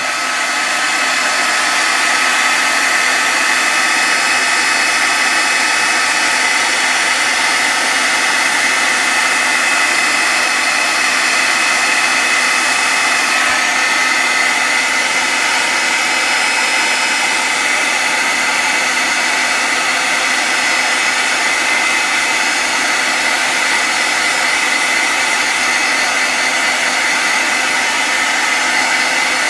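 Handheld hot-air dryer running steadily on wet paint to dry it: a constant rush of blown air with a steady high whine.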